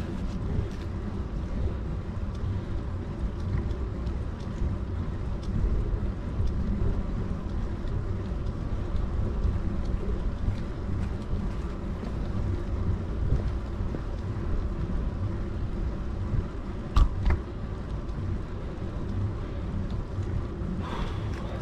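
Steady low rumble of wind buffeting an action camera's microphone, mixed with tyre noise from a bicycle riding on the road. A couple of sharp knocks come close together about four-fifths of the way through.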